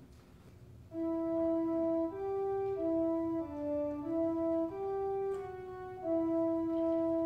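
Instrumental closing music of a church service: steady, sustained notes in two parts moving together, starting about a second in after a moment of quiet.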